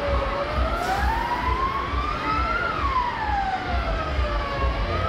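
A wailing siren tone sweeping slowly up and down: it climbs for about two and a half seconds, falls for about two, and starts climbing again near the end. A low, irregular thumping runs underneath.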